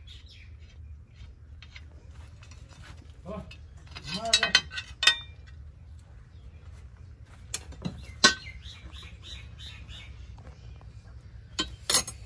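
Metal clinks and clanks as a spanner and a chaff-cutter blade are worked loose from the cutter's flywheel: a cluster of ringing knocks about four seconds in, single knocks around seven and eight seconds, and a quick pair near the end. Birds chirp faintly in the background.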